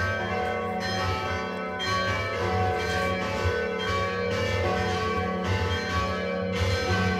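Church bells pealing: several bells struck in turn, their ringing tones overlapping, with a new strike every second or two.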